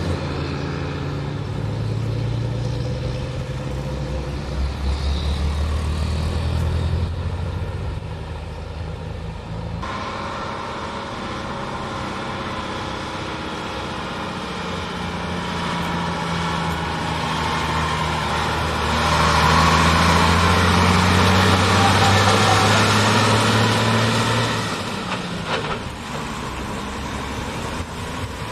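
Heavy diesel trucks driving past on a road, one of them a Nissan Diesel: a low engine drone that shifts in pitch. It is loudest for about five seconds, starting around nineteen seconds in, as a truck passes close.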